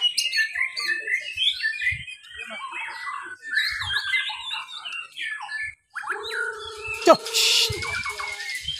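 Several white-rumped shamas (murai batu) singing against each other: fast, varied runs of whistles, chirps and trills overlapping throughout. About six seconds in a held, lower, steadier tone joins them, with a sharp falling note and a short burst of hiss about seven seconds in.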